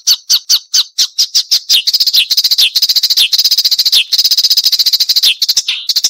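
Marsh warbler singing: sharp repeated notes at about five a second, then from about two seconds in a fast, dense chattering trill broken by louder downslurred notes, returning to separate notes near the end.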